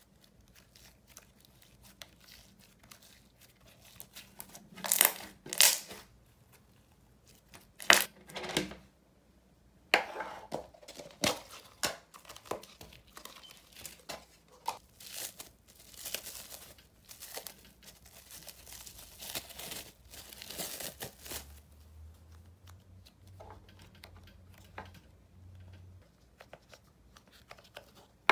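White fluffy slime stretched, pulled apart and squished by hand, making crackly tearing and crinkling sounds in irregular bursts, mixed with clear plastic containers and lids being handled. The sounds thin out in the last several seconds.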